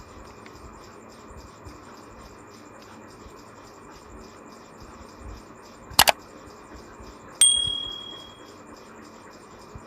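A sharp click as a charging cable is plugged into the USB port, then about a second and a half later a single short electronic chime from the phone that fades away over about a second: the phone signalling that charging has started.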